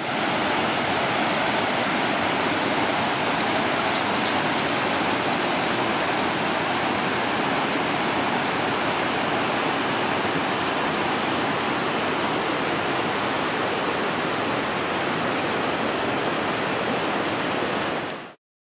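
Shallow, rocky stream rippling over stones: a steady rush of running water that cuts off suddenly near the end. A few faint high chirps sound briefly about four seconds in.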